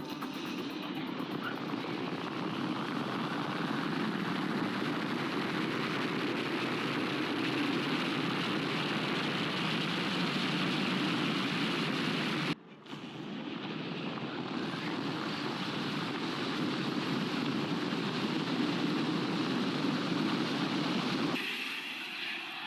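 Steady noise of a vehicle in motion, road and wind rush without a clear engine note, cut off abruptly about twelve seconds in and then resuming.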